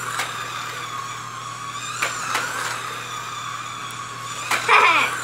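Electric slot cars running around a plastic track, their small motors giving a steady, wavering whine, with a few sharp clicks. A brief high voice-like sound near the end is the loudest moment.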